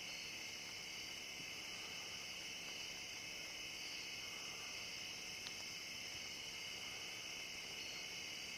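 Steady night chorus of insects trilling in two high bands without a break, with a single faint click about five and a half seconds in.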